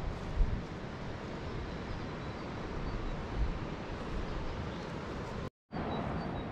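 Wind buffeting an outdoor microphone: an uneven low rumble with a hiss over it. The sound drops out completely for a moment about five and a half seconds in.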